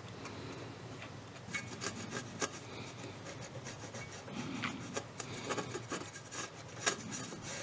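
Cotton swab wet with alcohol scrubbing the tone arm friction pad of a Philips AG 1025 turntable: soft, irregular scratchy rubbing with small clicks, as a build-up is cleaned off the pad.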